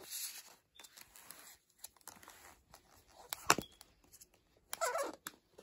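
Rustling and light clicks of a plastic 4K Blu-ray disc case and its paper insert being handled, with one sharp plastic click about three and a half seconds in.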